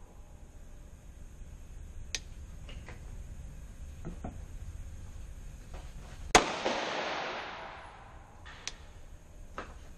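A 9mm pistol fired once, about six seconds in: a single sharp report followed by a long reverberant echo that dies away over a second or so. A few much fainter sharp cracks come before and after it.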